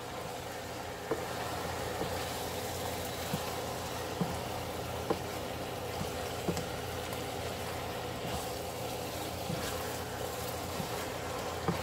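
Chicken thighs frying in a nonstick pan with a low sizzle as a silicone spatula stirs them, tapping lightly against the pan every second or so, over a steady low hum.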